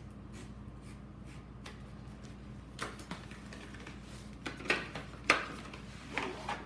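Cardboard and plastic retail packaging being handled as the inner box is slid out of its sleeve: a few sharp scrapes and knocks starting about halfway through, the loudest just past the middle, over a steady low hum.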